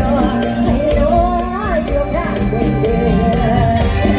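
Live Isan mor lam music through a PA: a woman singing a winding melody into a microphone over an amplified band with bass and a steady percussion beat.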